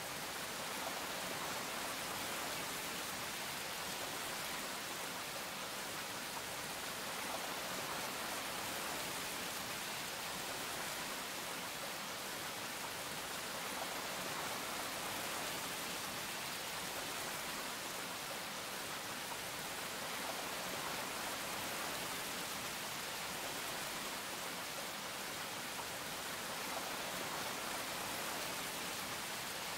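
A steady, even hiss with no distinct sounds in it.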